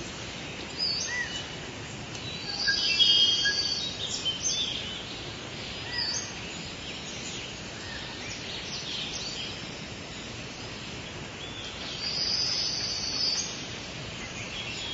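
Several songbirds singing and calling over a steady background hiss, with many short chirps and trills; the song is busiest and loudest about three seconds in and again around twelve seconds in.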